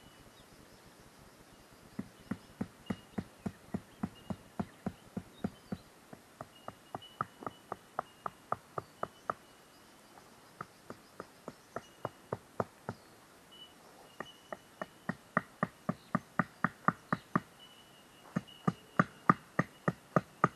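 A tent stake being hammered into the ground: quick, evenly spaced knocks, about four a second, in runs of a few seconds with short pauses between them.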